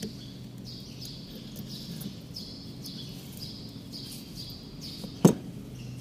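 One sharp metallic clack of steel transmission control valve parts being handled, a little past five seconds in. Under it, a steady low hum and a bird's high chirp repeating under a second apart.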